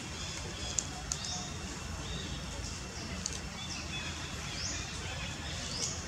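Outdoor ambience with a bird chirping repeatedly: short high rising chirps every second or two, over a steady low rumble. A couple of faint sharp clicks come about a second in.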